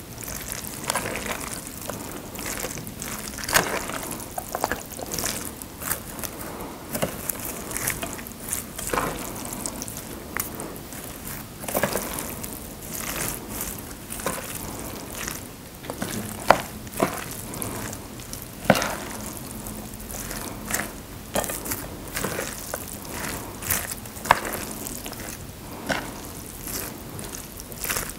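Chopsticks tossing and mixing jjolmyeon (chewy noodles with sauce, shredded vegetables and a crispy topping) on a plate: a continuous wet squishing and crackling rustle, broken by irregular sharp clicks of the chopsticks against the plate.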